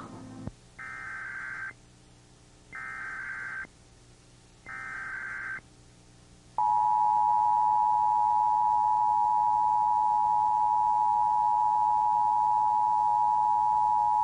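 SAGE EAS ENDEC 1822 sending an Emergency Alert System Required Monthly Test: three roughly one-second bursts of SAME header data, evenly spaced, then from about halfway through the steady two-tone EAS attention signal, louder than the bursts.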